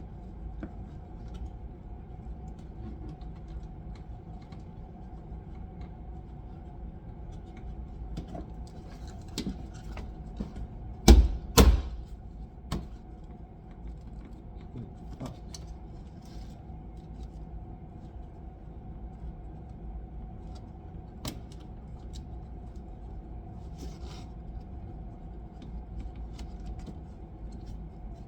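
Plastic door-panel clips being punched into a car door by hand: two loud sharp thumps about half a second apart roughly 11 seconds in, with light clicks and handling noise of the trim panel before and after, over a steady low hum.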